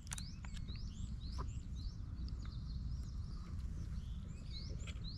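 Small songbirds calling in the open: thin, quick rising chirps, about three a second, over a steady low rumble.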